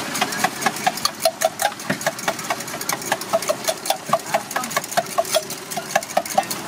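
Metal spatula clanking rapidly and rhythmically on a flat iron griddle, about six ringing strikes a second, over a steady low hum.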